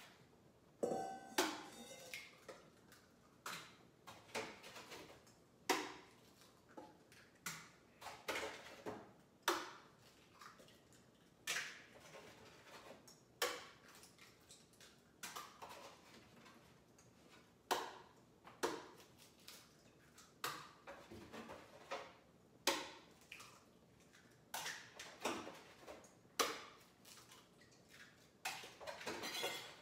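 Eggs being cracked against a stainless steel mixing bowl: sharp taps and clinks every second or two, with the metal bowl ringing briefly about a second in.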